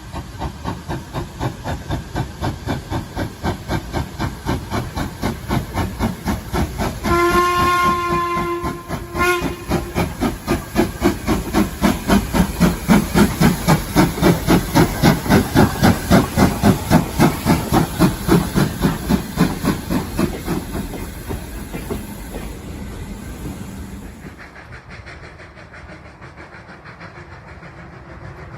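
Steam locomotive pulling away, its exhaust chuffs quickening and growing louder, then fading away near the end. A whistle blows for about two seconds some seven seconds in, followed by a short second toot.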